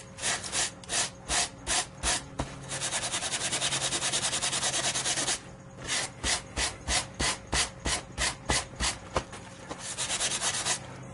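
Coarse metal sponge scrubbing the darkened surface off an acid-soaked zinc plate in rhythmic back-and-forth strokes. The strokes come at about three a second, speed up into a fast run about three seconds in and again near the end, and stop briefly about five seconds in.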